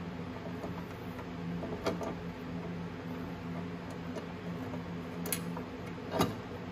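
A few sharp metallic clicks and faint ticks, three of them louder, from hand tools working the 10 mm mounting nuts off a motorcycle voltage rectifier, over a steady low hum.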